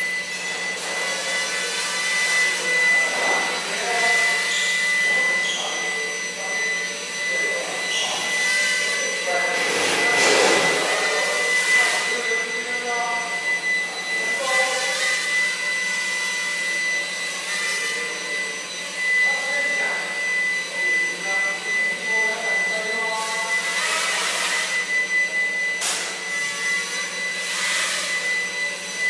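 Walkera QR Spacewalker micro octocopter in flight: its eight tiny 0720 motors and propellers whine steadily, the pitch and loudness wavering up and down as the throttle and direction change, with louder swells about ten seconds in and again near the end.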